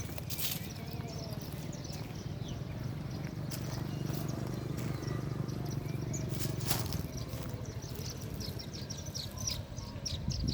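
Small birds chirping, many short high calls that come thickest in the last few seconds, over a steady low rumble.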